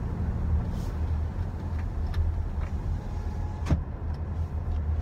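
Road and tyre noise inside the cabin of a Toyota RAV4 Hybrid on the move, a steady low rumble, with one sharp knock a little past three and a half seconds in.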